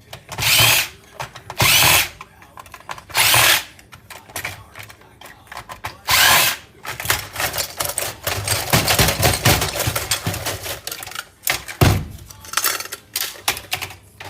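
Cordless drill/driver backing screws out of a computer case: four short bursts of spinning, each about half a second, followed by several seconds of clicking and clattering from handling the parts, with a sharp knock near the end.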